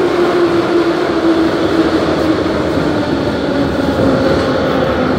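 Moscow Metro train heard from inside the car, slowing into a station: a steady rumble with a motor whine that falls slowly in pitch as the train brakes.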